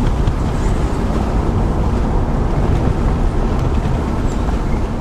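A car on the move: a loud, steady low rumble of engine, tyre and wind noise.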